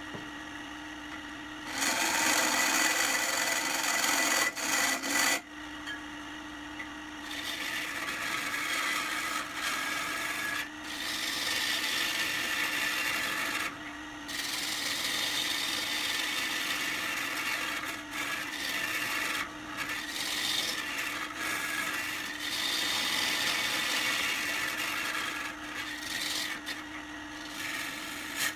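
A tool held against a wooden vase blank spinning on a wood lathe, scraping and hissing as it cuts or smooths the wood. It works in passes that stop and start, the loudest a couple of seconds in. A steady hum from the lathe runs underneath.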